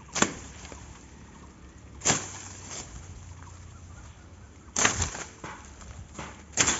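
A dao (machete) chopping into wood: four sharp chops about two seconds apart.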